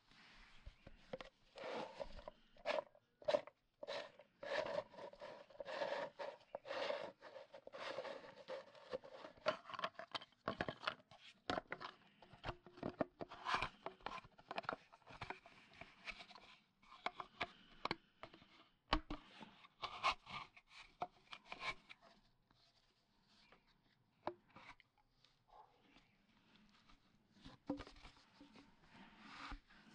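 Blue plastic compression pipe fittings handled and fitted together onto a black threaded plastic elbow: irregular clicks, knocks and scraping of plastic parts against each other.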